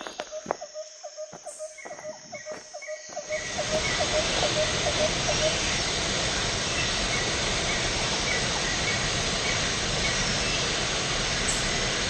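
Waterfall water rushing and splashing over rocks: a steady, loud rush that comes in suddenly about three seconds in. Before it there are a few rustling steps through tall grass under a rapid repeating chirp.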